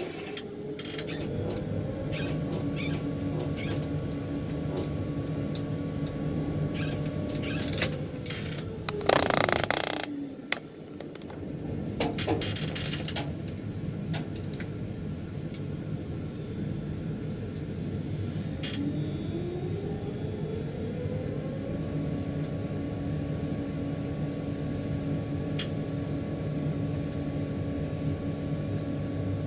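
Tower crane's electric drive motors humming in the operator's cab, their whine rising in pitch as a motor speeds up about a second in, falling away around seven to eight seconds, and rising again around twenty seconds. A short louder rush of noise comes about nine seconds in, with scattered light clicks.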